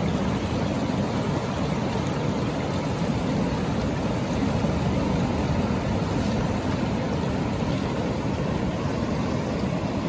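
Ocean surf breaking offshore and shallow seawater washing around rocks: a steady, unbroken wash of noise with no separate crashes.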